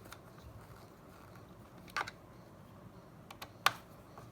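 Two sharp clicks about a second and a half apart, the second louder, with a few faint ticks just before it: a screwdriver and screws working on a laptop's plastic case.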